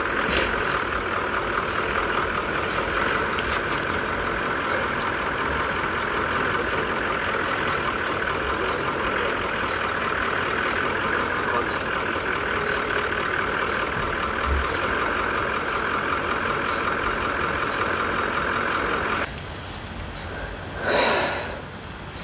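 A vehicle engine idling with a steady hum that cuts off about nineteen seconds in, followed by one short loud burst of sound near the end.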